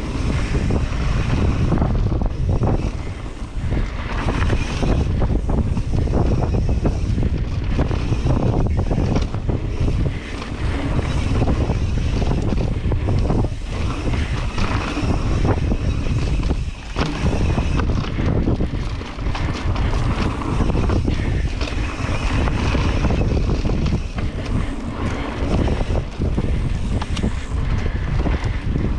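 Loud wind buffeting a camera microphone at speed, with the rumble and rattle of a mountain bike rolling down a dirt flow trail, easing off briefly now and then.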